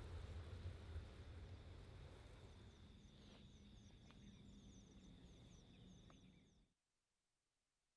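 Low rumble of a Boeing 737 jet dying away after landing, under a steady high insect drone and a run of quick high chirps. About two thirds of the way through, everything cuts off abruptly to near silence.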